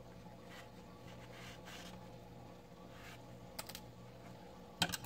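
Faint rustling of acrylic yarn being drawn by hand through a crocheted amigurumi head to hide the tail, with a couple of sharp clicks about three and a half seconds in and a louder cluster of clicks near the end.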